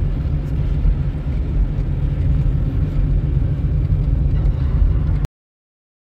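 Steady low rumble of a car driving, heard from inside the cabin: engine and road noise. It cuts off suddenly a little over five seconds in.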